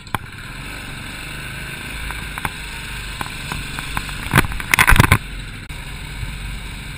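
Royal Enfield single-cylinder motorcycle engine running as the bike rides along, heard from the handlebars. About four and a half seconds in there is a short, loud burst of noise.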